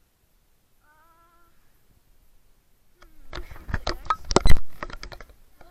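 A short wavering pitched call about a second in, then a dense run of loud knocks, clicks and rubbing from the camera being handled, loudest a little after four seconds.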